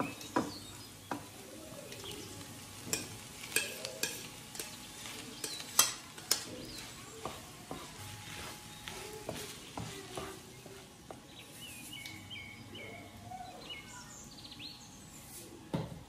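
Rice and scrambled egg frying in a non-stick frying pan, sizzling softly while a wooden spoon stirs and knocks against the pan. The knocks come thick and sharp in the first half and thin out later.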